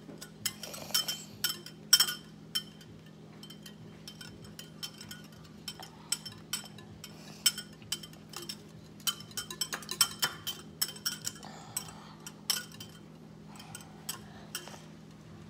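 Metal wire whisk beating eggs in a glass bowl: irregular clinks and taps of the wires against the glass, coming thickest in the middle and thinning out near the end.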